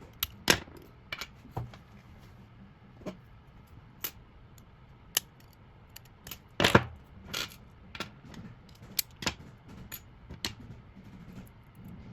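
Small metal clicks and taps of a car door lock cylinder and its parts being handled and taken apart by hand. The sounds are irregular and come every second or so, with louder clicks about half a second in and around six and a half seconds in.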